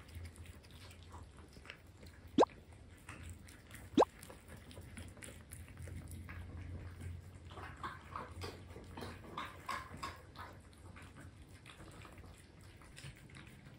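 Several cats eating soft cooked fish from metal bowls: wet chewing and licking with many small ticks and clicks. Two sharp, loud clicks stand out, about a second and a half apart, a couple of seconds in.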